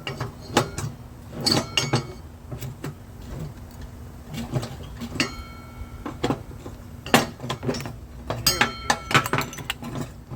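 Irregular metal-on-metal knocks and clinks, a hammer tapping a stuck steel pulley to work it loose from a mower deck spindle shaft. A few strikes ring briefly, with a quick cluster near the end.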